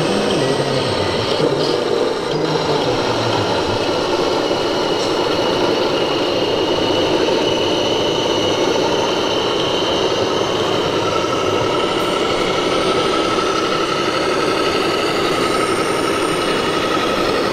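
Electronic engine sound of a 1:14-scale RC Scania model truck, a steady diesel-like running sound as the truck pulls a tanker trailer at low speed, over a constant din.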